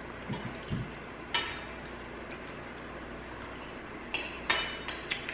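Quiet table sounds of a fried chicken meal: a couple of soft knocks early, a sharp click a little over a second in, and a quick cluster of clicks and clinks near the end.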